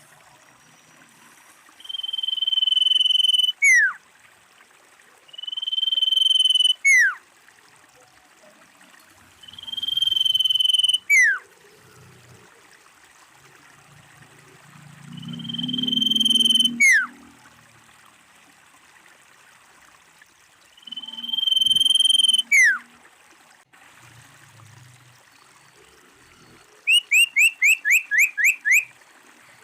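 Common iora calling: five long, drawn-out whistles that swell in loudness, each ending in a quick falling note, then near the end a fast run of about ten short falling notes.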